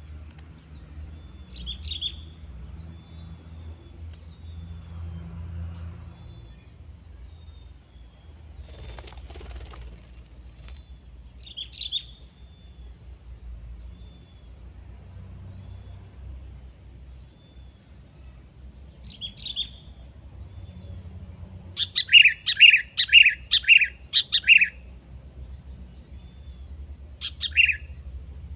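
Sooty-headed bulbul (kutilang) calling. A few short, separate calls, then a loud, rapid series of about eight notes about two-thirds of the way through, followed by one more call near the end.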